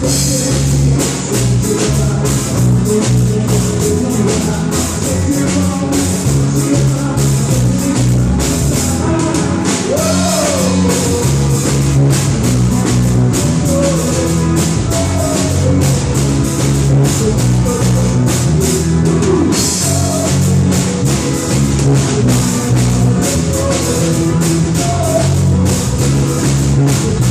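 A band playing rock-style music: drum kit with tambourine, bass and guitar, and a voice singing at times.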